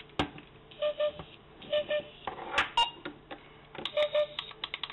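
Plastic clicks and knocks from toy prop replicas being handled and set down, with a few short paired beeps in between.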